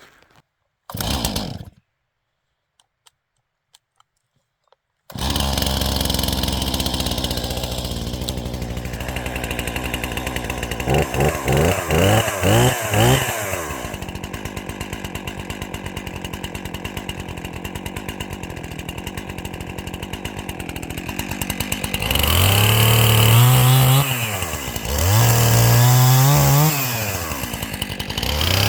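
Chainsaw starting up about five seconds in and idling, blipped up several times, then run hard near the end with its pitch sagging and recovering again and again, as when it bites into wood.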